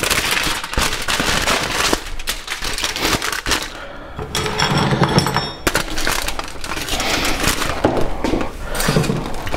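Aluminium foil being crumpled and folded by hand, a loud dense crinkling and crackling.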